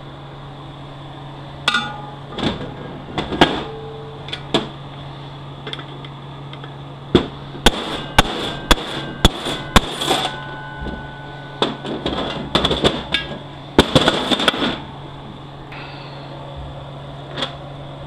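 Hammer striking a steel bushing driver on the pump bushing of a 6L80E automatic transmission. The blows come irregularly, some singly and some in quick runs, several followed by a brief metallic ring.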